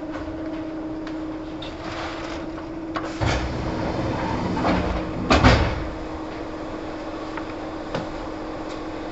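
Kintetsu 1810-series commuter train standing at a station as its pneumatic doors open: a burst of air about three seconds in, then a louder knock and rush as the doors slide open a couple of seconds later. A steady hum from the car's equipment continues underneath.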